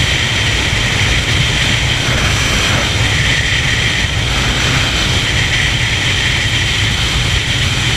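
Steady wind rush and buffeting on the microphone of an Agusta motorcycle cruising at highway speed, with the engine's even drone underneath.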